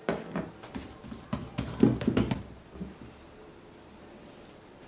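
A few light knocks and clinks of a small two-handled metal bowl being moved on a wooden board and a brush lifted out of it, the loudest about two seconds in. After that there is only faint room tone.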